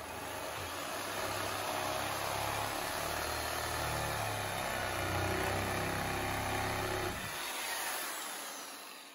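Corded electric reciprocating saw running steadily as it cuts along the back edge of a tiled countertop. About seven seconds in the trigger is let go and the motor winds down with a falling whine.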